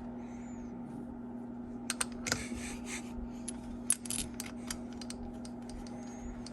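Scattered light clicks and taps of small metal engine parts, rocker arm bolts and rockers, being handled and set on the cylinder head, over a steady low hum.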